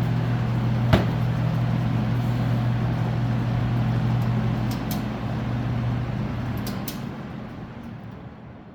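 Vintage McGraw-Edison Eskimo box fan running, its noisy motor humming under the rush of the blades, with a sharp click about a second in. Near the end the fan is switched off and the hum and air noise die away.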